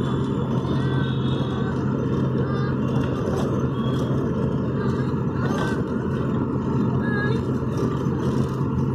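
Steady engine and road noise inside a moving taxi's cabin. A constant low hum sits over a rumbling drone.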